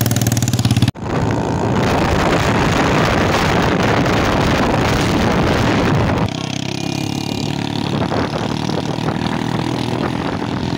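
Engine of an open vehicle running steadily as it travels along a road. For most of the first half, heavy wind noise rushes over the microphone; after an abrupt change about six seconds in, the engine hum is clearer under lighter wind.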